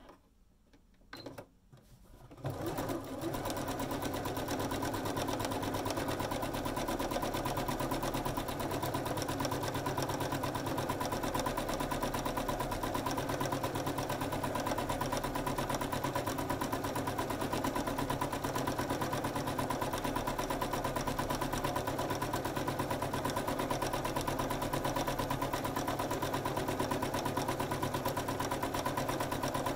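Electric domestic sewing machine free-motion stitching through fabric and wadding with a darning foot, starting about two and a half seconds in and then running steadily without a stop.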